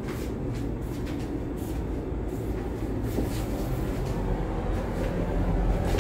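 Steady low rumble of a stove burner flame heating an empty aluminium pot, with a few faint ticks.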